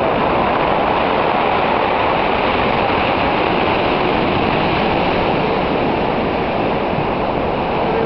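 Storm surf: rows of waves breaking and washing up the beach in a steady, loud roar of water, with no let-up.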